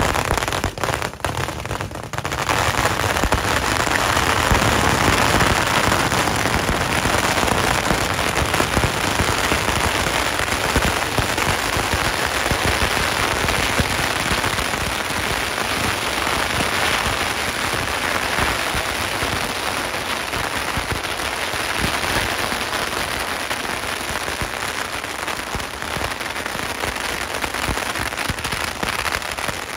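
Firecrackers going off in a massive barrage: a few separate bangs at first, then from about two seconds in a dense, continuous crackle like heavy rain that slowly eases toward the end.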